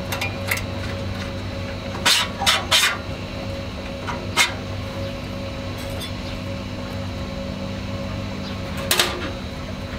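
Sharp metal clinks of the bolt, spring and nut being fitted to a stainless steel grill's bottom damper: three in quick succession about two seconds in, then single ones around four and nine seconds in, over a steady low hum.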